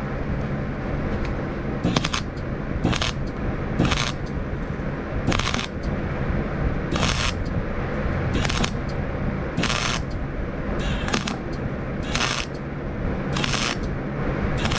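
Welding arc crackling in short bursts, about one every second to a second and a half, on a rake's steel over a steady crackle and hum, with the welder laying a bead in short stitches.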